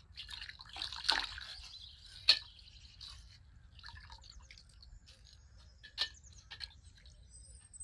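Plastic ice-pack bag of coloured water being popped and torn open: crinkling plastic and splashing water, with a sharp snap a little after two seconds and another near six seconds.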